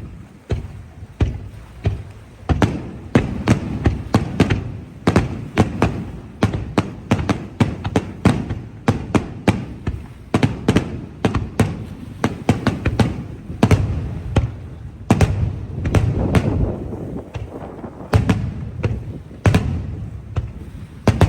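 Fireworks: a rapid barrage of aerial shell bursts, many sharp reports a second and often overlapping, over a continuous low rumble of echoes.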